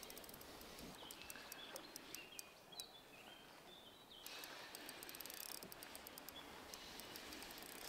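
Faint outdoor ambience, close to near silence, with faint short bird calls about one to four seconds in and scattered light ticks.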